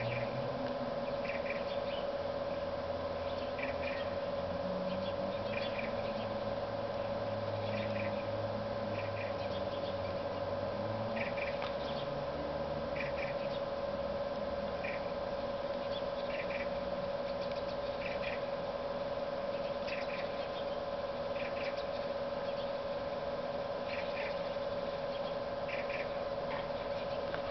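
Two cats in a standoff: a low, drawn-out growl that wavers in pitch through roughly the first half. A steady hum runs under it, with short high chirps about every second or two.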